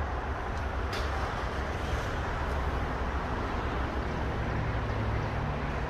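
Steady low rumble of outdoor road-traffic noise, with a faint low engine-like hum coming in about four seconds in.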